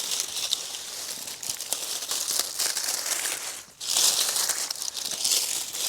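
Dense crinkly rustling with many small crackles as a sweet potato bed is worked for digging; it breaks off briefly a little under four seconds in, then resumes.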